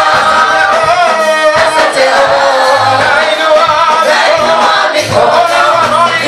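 A choir singing a gospel praise song, several voices together over a steady beat.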